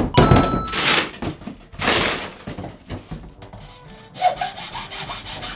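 Hacksaw cutting a grey plastic HT drain pipe: the blade rasps back and forth, with two long, heavy strokes early, then quicker, lighter strokes.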